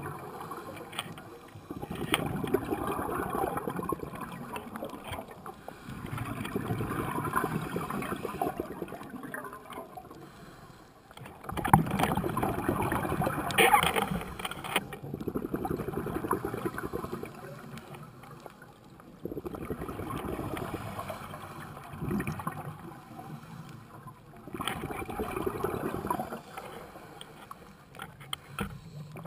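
Scuba diver breathing through a regulator underwater: exhaled bubbles rush and gurgle out in bursts every five seconds or so, about five times, with quieter pauses between breaths.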